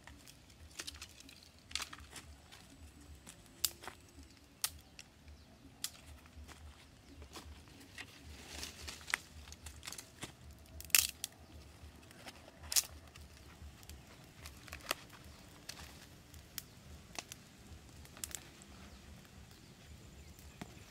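Irregular sharp snaps and crackles of dry twigs: a small campfire of sticks burning while dry sticks and leaf litter are handled beside it. The loudest snaps come a little past the middle.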